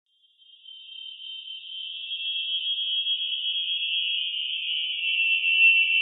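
Tense, surreal drone sound effect: a high-pitched cluster of close, steady tones that fades in over the first couple of seconds, then holds and sinks slowly in pitch.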